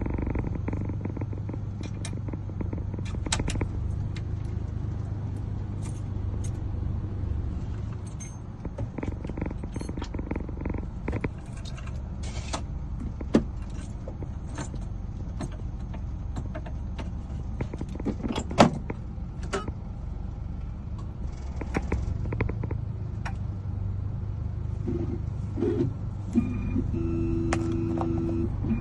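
Keys and small metal parts being handled, with scattered clicks and taps, over a steady low hum. The hum drops away for a while after about eight seconds and returns near the end, when a few short pitched tones sound.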